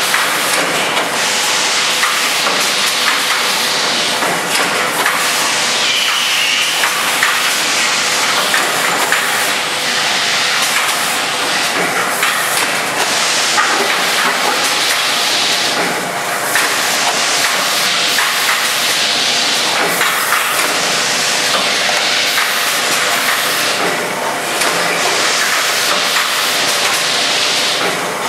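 A Makum four-lane shot glass filling and sealing machine running: a steady mechanical clatter with many small clicks as cups move along the conveyor, and bursts of hiss every few seconds.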